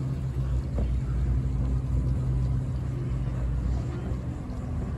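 Inboard diesel engine of a single-screw Grand Banks 36 trawler running at low speed as it turns in the basin, a steady low rumble made of several low tones.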